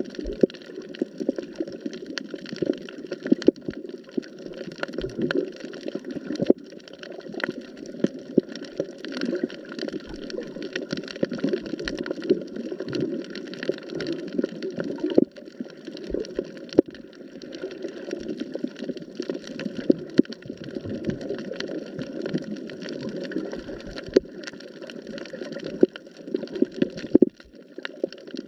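Underwater sound picked up through a camera's waterproof housing on a shallow reef: a steady muffled rush of moving water with many irregular sharp clicks and crackles.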